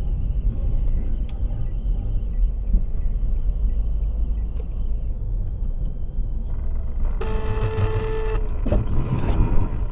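Steady low rumble of a car driving on a snowy road, heard from inside the car. About seven seconds in, a car horn sounds one steady note for just over a second as another car pulls out close in front.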